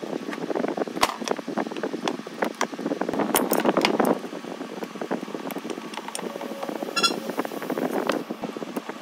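An aluminium heatsink and a screwdriver being handled on a wooden workbench: a dense run of clicks, knocks and rustle, with a short ringing metal clink about seven seconds in.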